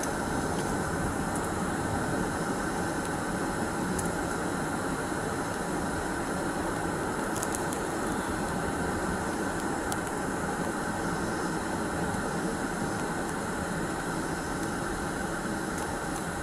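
Steady hum and rush of an idling car with its ventilation fan blowing.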